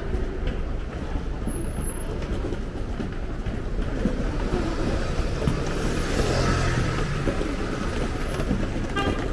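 Busy narrow-street ambience with a steady low rumble of traffic. A motor scooter's engine passes close by, swelling about six seconds in. There is a brief higher-pitched sound near the end.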